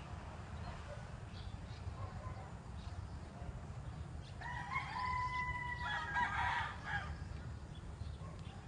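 A rooster crowing once, a single long held call, about halfway through, over a steady low rumble.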